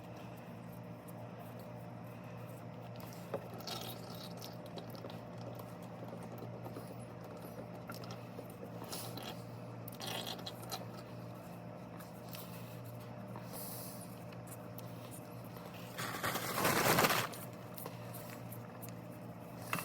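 Oil filter being unscrewed by hand: faint scrapes and handling noises over a steady low hum. Near the end comes a louder scraping, rushing noise lasting about a second and a half.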